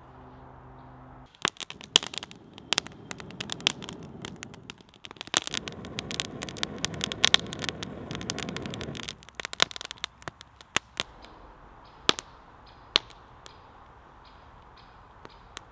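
Split-wood campfire crackling and popping: a dense run of sharp pops over the rush of the flames from about a second in, thinning to occasional pops after about nine seconds.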